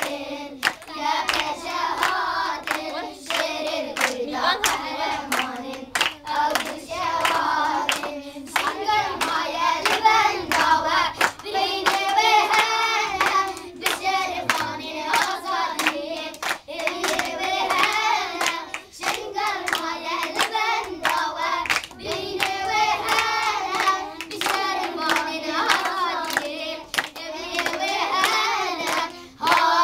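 Group of children singing a song together while clapping their hands in rhythm.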